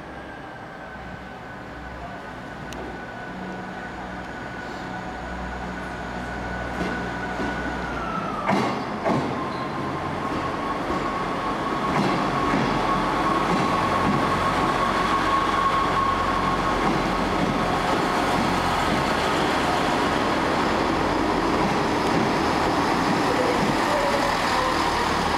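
Diesel passenger trains moving along the platform: engine noise with a steady whine that grows louder over the first dozen seconds, then holds loud and even. A couple of sharp knocks come about eight and a half seconds in, where the whine drops in pitch.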